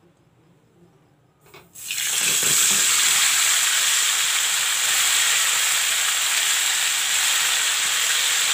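A whole marinated chicken goes into hot mustard oil in a karai. About two seconds in, a loud, steady sizzle of frying starts suddenly and keeps going.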